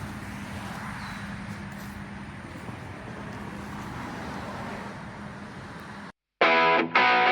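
Steady outdoor background noise of distant road traffic, cut off after about six seconds; loud distorted electric-guitar music then starts.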